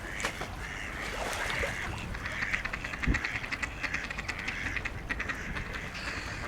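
Waterbirds calling, a busy chatter of many short calls that grows denser in the middle. There is a single low thump about three seconds in.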